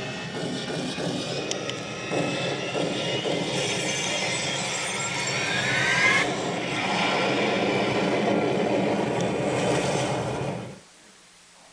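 A demo soundtrack played loud through a Samsung HW-E450 sound bar and its linked subwoofer: a dense, rumbling, jet-like roar with a rising whistle about halfway through. It fades out near the end.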